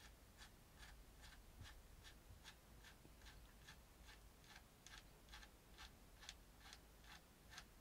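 Faint ticking with even spacing, about three ticks a second, over near silence.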